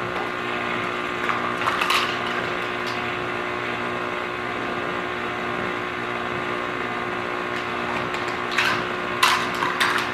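Stand mixer motor running steadily on low speed, its beater turning through thick sweet potato pie filling in a steel bowl. A few light clicks of a spice container being handled and opened come about two seconds in and again near the end.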